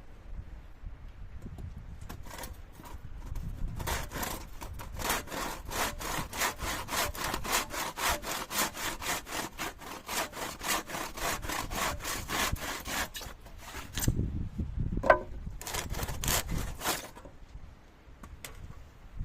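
Hand saw cutting wood in quick, even back-and-forth strokes, about three a second. The strokes pause about two-thirds of the way through, a single sharp knock sounds, and then a shorter run of strokes follows. Wind rumbles on the microphone underneath.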